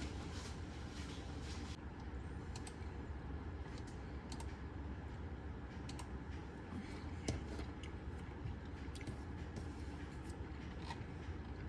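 Scattered light clicks and taps, a few seconds apart, over a steady low hum, with one louder knock about seven seconds in.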